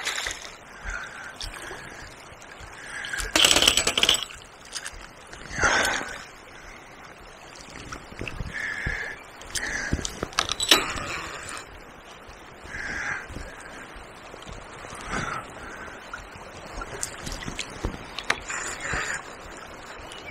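Fast river water running, with a few loud splashes from a hooked barbel thrashing near the surface. A bird calls briefly now and then.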